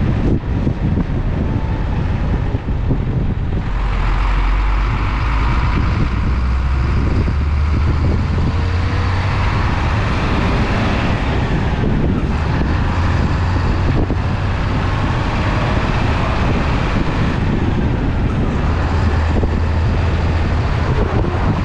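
A semi-truck's diesel engine running steadily at road speed, with tyre and road noise; the engine's low drone shifts in pitch a few times, near 4, 8 and 18 seconds in.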